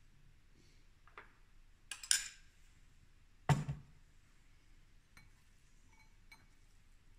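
A metal spoon clinks against a glass bowl twice, about two seconds in, then a duller, heavier knock follows as the glass bowl is set down on a stone worktop. A few faint light taps come after.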